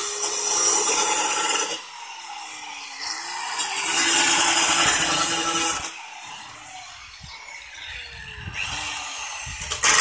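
Handheld electric cutter slicing through the sheet metal of an oil tin in bursts: a loud grinding cut at the start, then the motor spins back up with a rising whine for a second cut of about two seconds in the middle, winds down, and whines up again for a third cut near the end.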